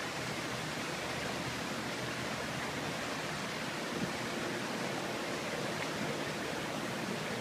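Steady outdoor hiss of wind and distant surf, even throughout, with no distinct sounds standing out.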